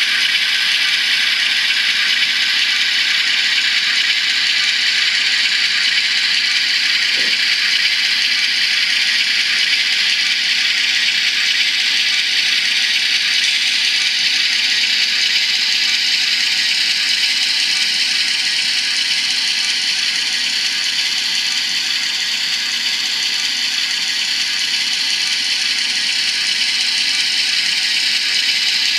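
LokSound Micro sound decoder in an N scale ES44AC model locomotive playing a GE GEVO diesel engine sound through its miniature speaker: a steady engine drone with no deep bass. Its pitch shifts slightly in the second half.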